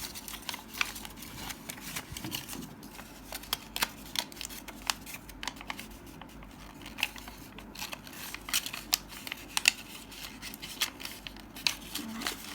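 A square sheet of origami paper being folded and creased by hand, flaps tucked inside and pressed flat, giving a scattered run of short, crisp paper crackles and rustles.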